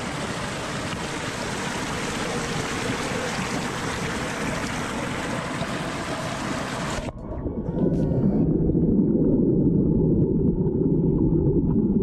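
Spring-fed mountain creek rushing and splashing over rocks below a small waterfall. About seven seconds in, the camera goes under the water: the hiss cuts off suddenly and the sound turns into a muffled, low, churning rush heard underwater.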